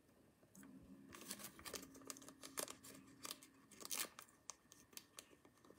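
Faint crinkling and sharp clicks of a plastic card holder and sleeve being handled, with scattered light taps, the loudest about two and a half and four seconds in.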